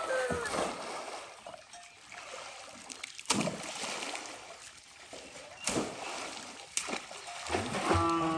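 Water splashing in a muddy fish pond as a cast net is thrown and worked. Three sharp splashes stand out, the first about three seconds in.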